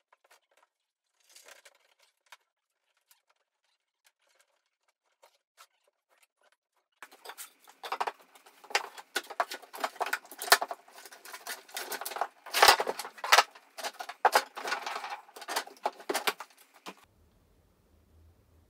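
Irregular knocks, clunks and scraping as a V-twin sportbike engine is manoeuvred by hand into a boat's engine bay. A few faint clicks at first, then dense handling noise for about ten seconds from about seven seconds in, stopping sharply near the end.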